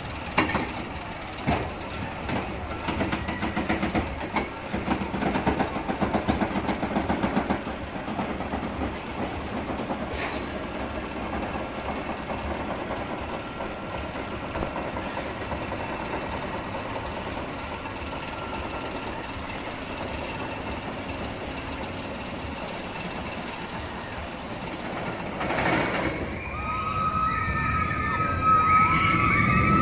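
Amusement-park ride cars running along a rail track, clattering hard for the first several seconds and then settling into a steadier rumble. High wavering tones come in near the end.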